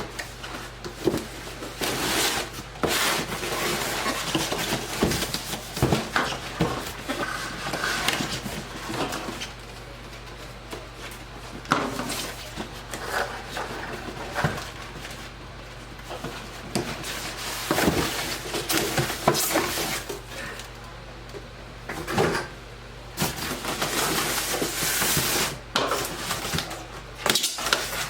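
Cardboard box and packaging being handled while unboxing: a long run of irregular rustling, crinkling and light knocks, over a low steady hum.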